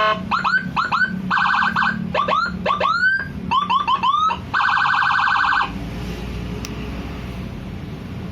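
200-watt 24-tone electronic siren module cycling through its tones: quick runs of short rising whoop chirps alternating with a steady buzzing horn tone. It cuts off suddenly about five and a half seconds in.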